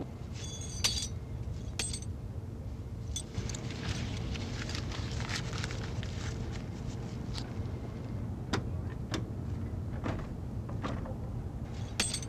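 Metal clinking and knocking as steel bars are handled, with a few ringing clinks near the start and again near the end, over a steady low rumble.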